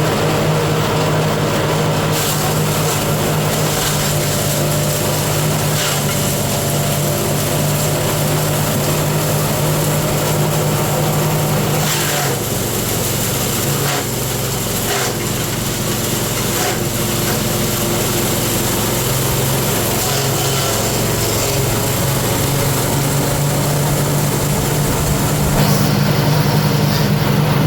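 A small engine-driven machine running steadily with a constant hum and rattle. Its pitch drops noticeably about twelve seconds in and rises back up near the end.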